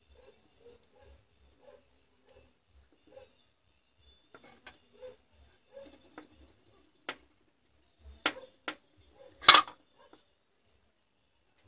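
Battery cells and wires being handled on a workbench: light clicks and taps, then a few sharper knocks in the second half, the loudest about nine and a half seconds in.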